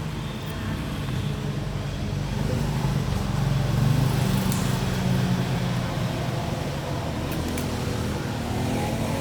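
A motor vehicle engine hum that swells to a peak about four seconds in and then eases off, like a vehicle passing by.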